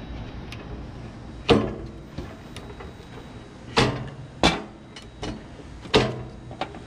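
Control knobs being pulled off a Weber Genesis gas grill's valve stems: a series of sharp clicks and knocks, four of them louder with a short ringing tail, and fainter clicks in between.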